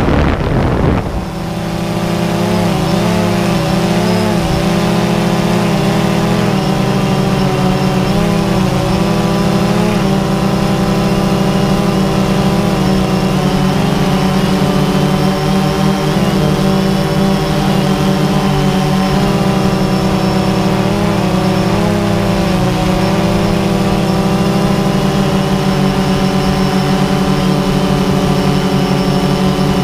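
DJI Phantom 2 quadcopter's electric motors and propellers whining steadily, heard up close from the camera mounted on the drone. The pitch wobbles up and down every few seconds as the motors change speed to steer. A brief rushing noise sounds right at the start.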